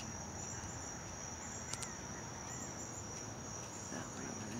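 Chorus of crickets or similar insects, a steady high-pitched trill with a slight pulse, over low outdoor hiss. Two short clicks a little under two seconds in.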